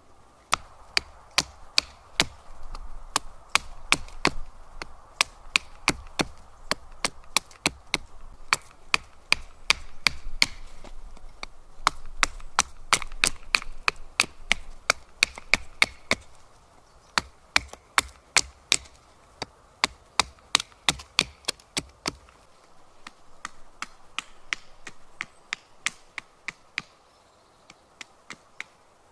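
Repeated chopping strikes of a blade into a green sapling, about two a second, sending out wood chips. About two-thirds of the way through the strikes turn fainter and sparser.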